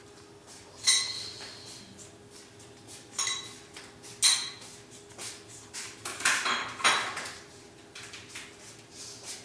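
Dishes and utensils clinking in a kitchen: about five separate knocks and clinks, the first about a second in ringing briefly.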